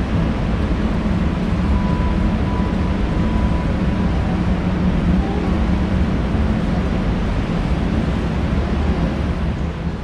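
Loud, steady rumbling noise with a low hum running through it, and a faint thin tone from about two to four seconds in.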